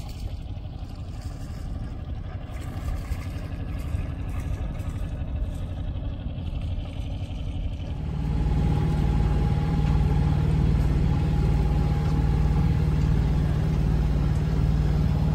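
Sailboat's auxiliary engine running steadily under way, a low throbbing hum that becomes louder and closer about eight seconds in.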